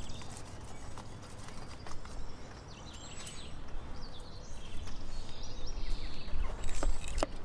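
Large kitchen knife cutting and scraping through a whole salmon on plastic sheeting: scattered clicks and taps, with heavier thumps and handling noise near the end.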